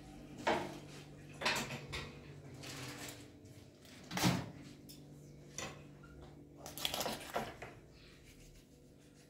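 Scattered knocks and clatters of household objects being handled, about half a dozen, the loudest about four seconds in, over a steady low hum.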